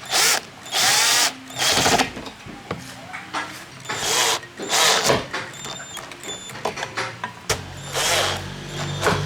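A power tool run in several short bursts, each spinning up and winding down. A low steady hum starts near the end.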